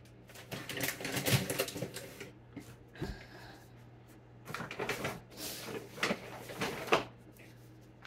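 Brown paper grocery bag rustling as a hand rummages in it and lifts items out, with scattered light clicks and one sharper knock about three seconds in.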